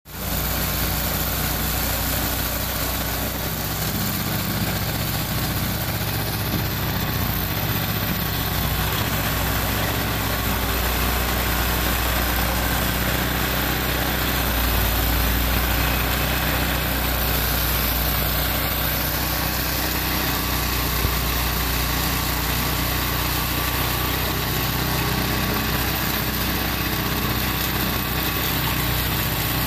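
Walk-behind gas snowblower's engine running steadily while the machine clears snow and throws it from the chute.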